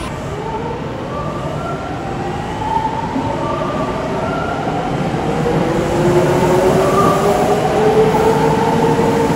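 Kintetsu electric train accelerating beside an underground platform: the whine of its traction motors rises steadily in pitch as it picks up speed, over the rumble of the wheels, and grows louder toward the end.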